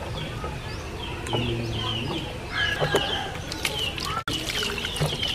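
Small birds chirping over and over, short falling notes, with water splashing as raw mangoes are rubbed and turned by hand in a metal basin.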